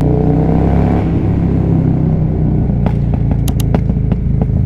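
Motorcycle engine running steadily while being ridden. Several sharp clicks come about three seconds in.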